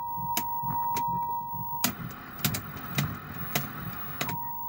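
A steady 1 kHz test tone plays from a Bush A823B colour TV's speaker. About two seconds in it gives way to a couple of seconds of hiss as the set loses the signal and shows snow, and the tone returns near the end. Sharp clicks are heard several times, the loudest as the tone cuts out and comes back.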